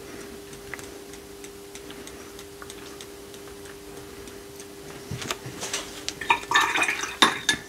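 Faint, scattered taps of a watercolour brush being tapped to spatter paint, over a low steady hum. From about five seconds in comes a busier run of clicks and clinks, the loudest near the end, as the brush knocks against a glass water jar.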